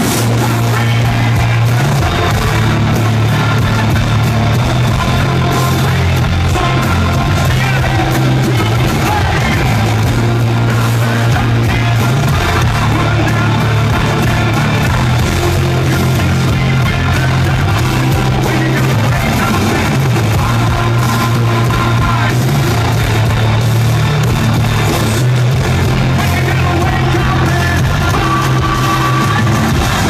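Live hard rock band playing at full volume in an arena: drums, distorted guitars and a heavy, stepping bass line, with sung and shouted vocals.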